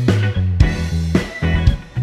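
Background music with a steady beat about twice a second over a changing bass line.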